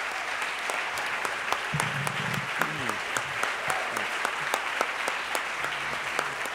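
Audience applauding steadily after a talk, with a brief voice or two among the crowd about two seconds in.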